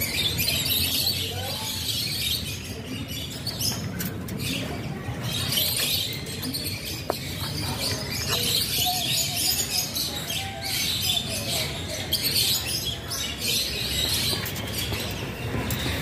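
Many small birds chirping continuously in a dense, high-pitched chatter.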